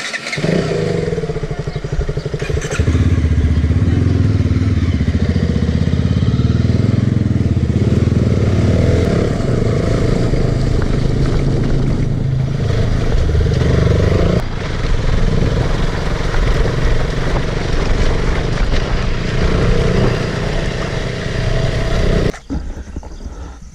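An off-road vehicle's engine running loudly under way, its pitch shifting a few times, then cutting off suddenly near the end.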